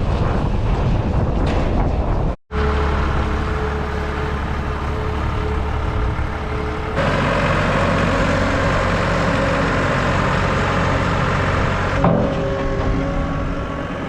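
A motor vehicle's engine running steadily, heard in a few short cut-together shots, with a brief dropout about two and a half seconds in.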